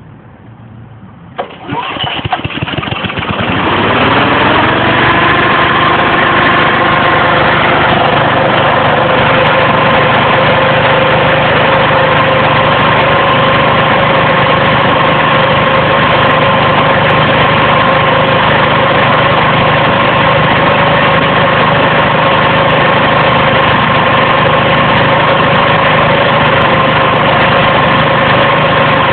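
Briggs & Stratton Vanguard 9 hp engine of a 24-inch Leader positive-pressure ventilation fan starting about a second and a half in. It climbs in pitch over the next few seconds, then runs steadily at speed, driving the fan.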